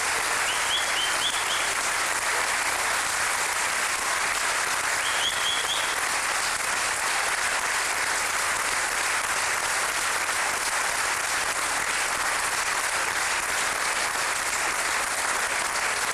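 Audience applauding steadily, the sustained clapping of many hands.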